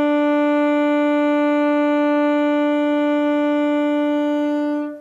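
Alto saxophone mouthpiece fitted on the neck, blown as one long, steady tone that cuts off just before the end.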